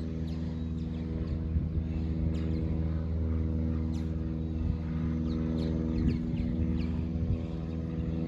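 A steady, even engine drone from an unseen motor, with birds calling over it in short, falling chirps every second or so.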